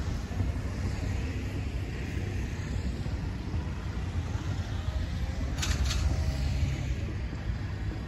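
Steady low outdoor rumble, with two short high chirps close together about five and a half seconds in.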